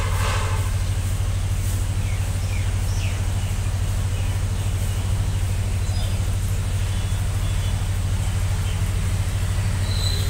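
A steady low hum runs unchanged throughout, with a few faint high chirps about two to three seconds in.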